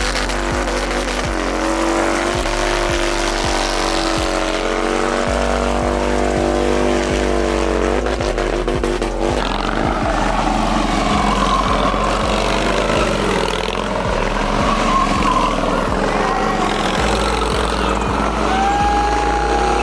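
A vehicle engine revving and running hard, its pitch holding and bending over several seconds, with background music underneath.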